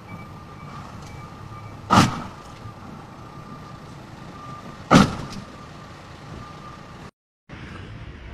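A vehicle's electronic warning beeper sounding repeatedly over the low rumble of traffic, with two loud thumps about two and five seconds in. The sound cuts out briefly near the end.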